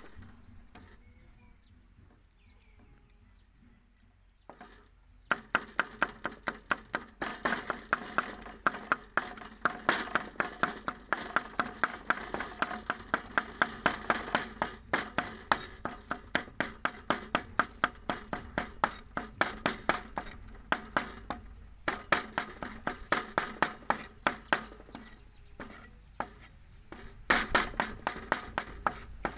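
Steel cleaver mincing garlic on a round wooden chopping board: a long run of quick, even knocks of the blade on the wood, starting about five seconds in, with a couple of short pauses.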